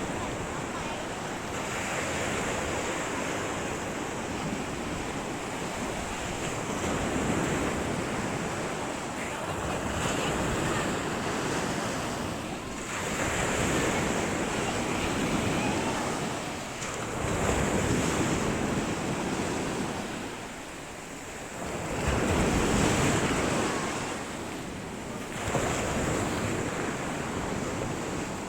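Sea waves washing up on the beach in repeated swells every few seconds, with wind buffeting the microphone.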